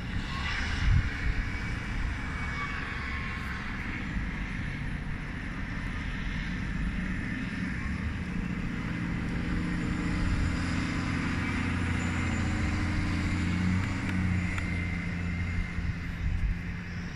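A motor vehicle's low engine rumble, growing louder about halfway through and easing off near the end.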